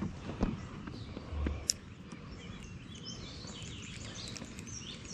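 Birds chirping and singing over faint outdoor background noise; the chirps begin about two and a half seconds in. A few light knocks and clicks come in the first two seconds.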